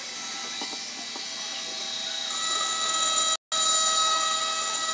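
Flexible-shaft rotary tool running with a steady high-pitched motor whine. It grows louder about halfway through as the engraving bit grinds into the glass bottle, and cuts out for an instant a little later.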